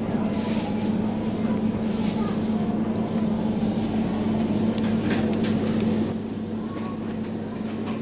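Steady low hum of supermarket freezer cabinets running, with a few light clicks about five seconds in; the hum gets quieter about six seconds in.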